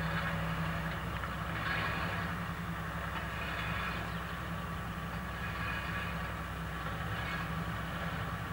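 Diesel engine of a wheeled loader-backhoe tractor running steadily with a low, even hum, under a rougher rushing noise that swells and fades every few seconds.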